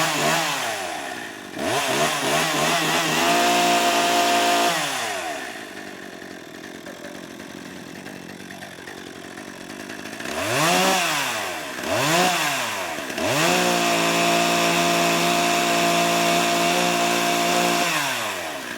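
Gasoline chainsaw engine being revved: a quick blip, then it is held at high revs for a couple of seconds and drops back to idle. After a few seconds at idle come two more quick blips, then a longer hold at high revs that falls away near the end.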